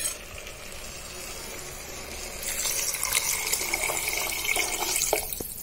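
Water poured into a hot pressure cooker over rice and cauliflower masala, a steady rush that starts about two and a half seconds in and stops near the end.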